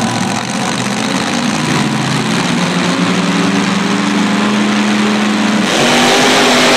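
Monster truck's supercharged V8 running at a steady, held pitch, then revving hard as the truck pulls away about five and a half seconds in, over the constant noise of the arena.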